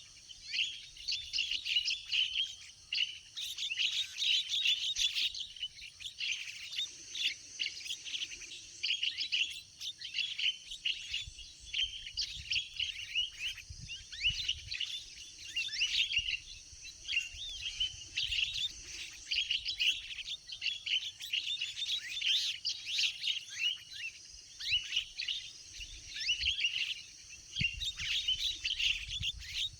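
Javan mynas (jalak kebo) chattering: a dense, unbroken stream of rapid, harsh chirps and calls from many birds at once, the kind of calling used as a lure to draw wild mynas in.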